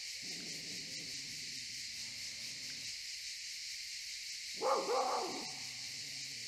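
Steady chorus of cicadas. About three-quarters of the way through, a short loud call slides up and down in pitch.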